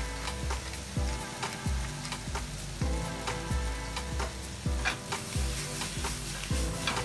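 Julienned potato and onion sizzling in a frying pan, under background music with a steady beat of low drum thumps.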